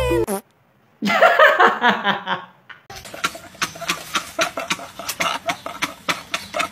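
Two young men laughing hysterically: a loud outburst of laughter about a second in, then a string of quieter, rapid pulses of laughter.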